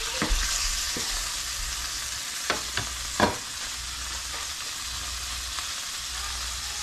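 Corn-flake-breaded catfish fillet sizzling in butter and oil in an uncovered frying pan, a steady hiss. A few sharp clinks of cookware come through it, the loudest about three seconds in.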